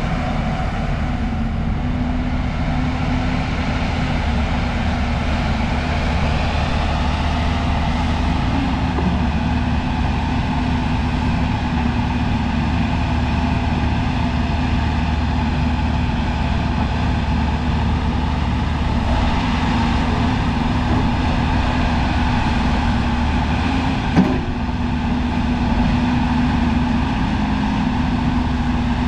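JCB 205 tracked hydraulic excavator's diesel engine running steadily under load while the boom and arm work, the upper structure slews and the machine travels on its tracks. One sharp knock comes about three-quarters of the way through.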